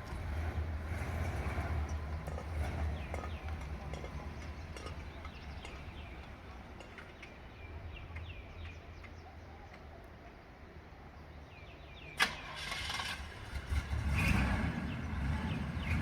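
Car engine running, its low rumble easing off through the middle, then a sharp click about twelve seconds in and the engine sound rising again.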